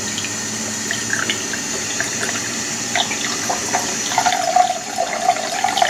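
Water running steadily from the outlets of an Enagic Leveluk K8 water ionizer and splashing, just after its supply tap is turned on. The splashing gets busier about four seconds in.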